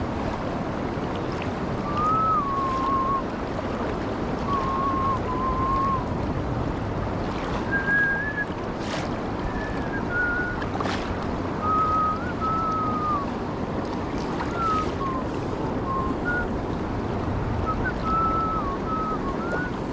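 Fast river current rushing steadily over a shallow riffle. Thin, wavering whistle-like tones come and go over it from about two seconds in.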